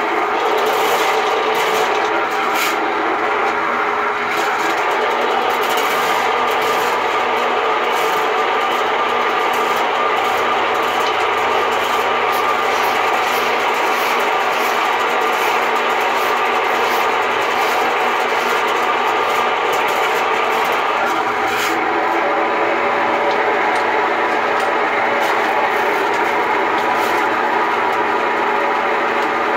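RIDGID K-60 sectional sewer machine running steadily, its electric motor spinning 7/8-inch cable into a drain line suspected to be clogged with grease.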